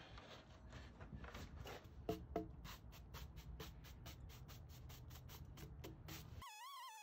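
Wire brush scrubbing sawdust off the freshly chainsaw-milled face of a cherry log, in quick, regular scratchy strokes. A wavering musical tone cuts in near the end.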